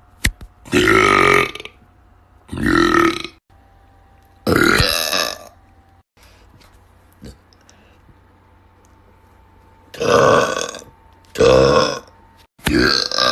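Men deliberately burping loudly: six long burps, three close together, then a pause of several seconds, then three more.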